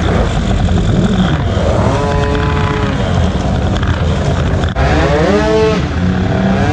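Motorcycle and scooter engines running in slow traffic, a steady low drone, with an engine revving up and falling back about two seconds in and again around five seconds in.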